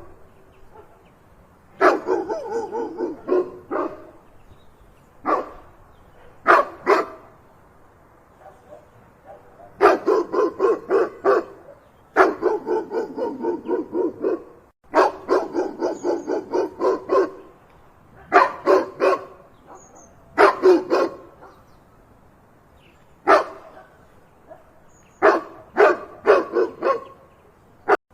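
A dog barking in rapid volleys of several barks each, with short pauses between the volleys.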